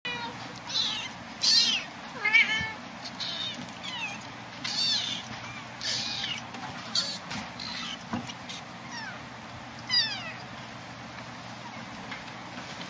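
Kittens mewing: a dozen or so short, high-pitched calls, each sliding down in pitch, coming every second or so, sometimes overlapping.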